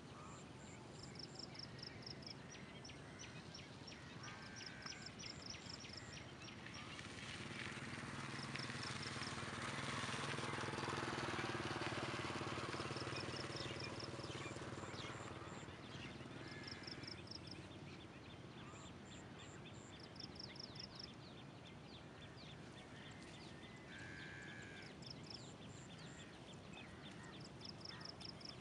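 Rural dawn ambience over a paddy field: high chirping calls repeat in short quick runs every few seconds, with a few lower calls. A motor vehicle passes, swelling to its loudest about halfway through and fading away.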